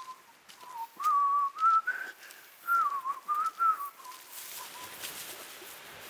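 A person whistling a short tune in several wavering, gliding phrases, which stops about four seconds in. A faint steady hiss follows.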